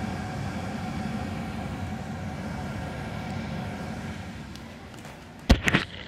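Steady rush of moving air with a faint hum from the upstairs 2003 Bryant gas furnace's blower running in cooling mode. It eases off a little near the end, and a few sharp knocks follow.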